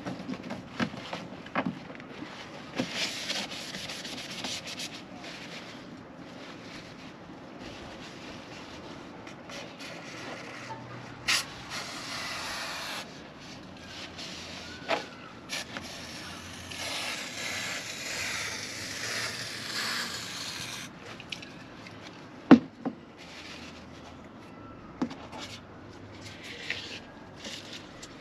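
Hands rubbing and working rubber trim along a caravan window frame, with scraping and handling noises. Twice a steady hiss from an aerosol can of silicone spray, the longer one in the second half. One sharp knock about three-quarters of the way through is the loudest sound.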